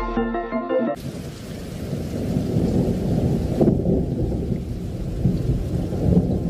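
Thunderstorm: steady rain with low, rolling thunder rumble, coming in about a second in as the held notes of an electronic music sting cut off.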